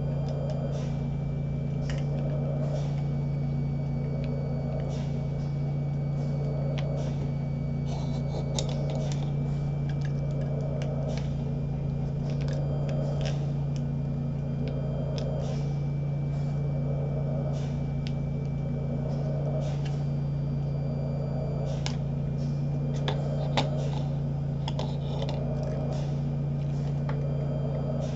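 Home mechanical ventilator running: a steady low hum with a soft whoosh that swells about every two and a half seconds as it pushes breaths through the tracheostomy hose, with scattered light clicks.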